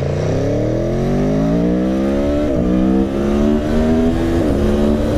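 Aprilia Tuono V4 motorcycle engine accelerating hard. The revs climb for about two and a half seconds, then dip briefly at an upshift, and again about two seconds later.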